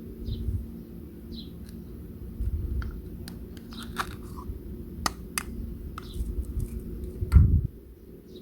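Knife crunching through fruit on a cutting board: a run of irregular crunches and sharp clicks, with the loudest thump near the end.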